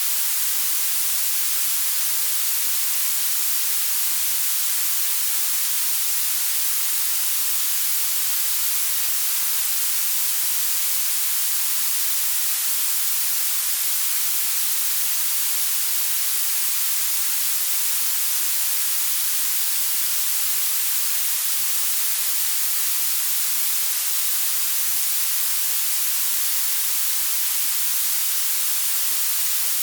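Blue noise: a steady, even hiss whose energy rises toward the highest pitches, with almost nothing in the bass.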